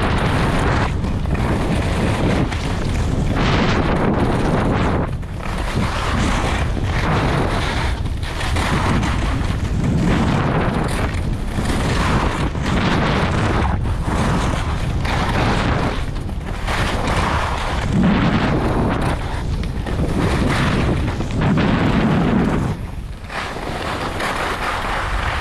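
Wind rumbling on an action camera's microphone at downhill speed, with Fischer RC4 WorldCup GS race skis scraping and hissing over hard-packed snow through a run of turns. The noise rises and falls every second or two.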